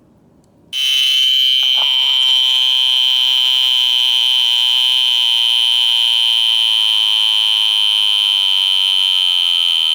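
Vintage 1950s sub-miniature mechanical travel alarm clock going off about a second in: a loud, steady, high-pitched ringing that keeps going without a break.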